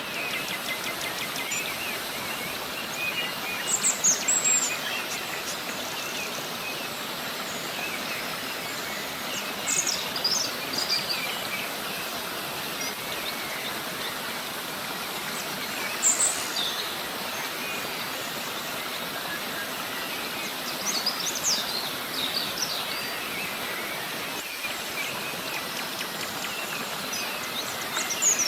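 Steady rush of a river cascade, with small birds chirping in short high phrases every few seconds over it.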